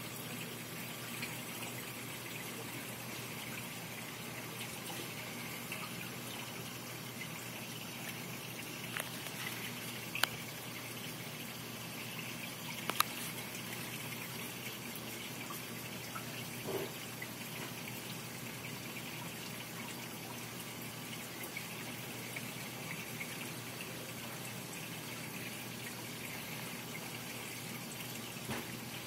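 Steady sound of water circulating in a 90-gallon saltwater reef aquarium, broken a few times by brief sharp clicks.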